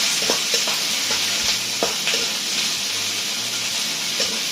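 Pork, peppers and onions sizzling in a hot wok as they are stir-fried, a steady hiss broken by a few sharp clicks of the utensil against the wok.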